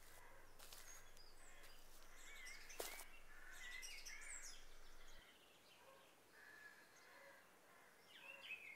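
Faint birdsong: scattered chirps and short wavering calls, with a few sharp knocks in the first three seconds.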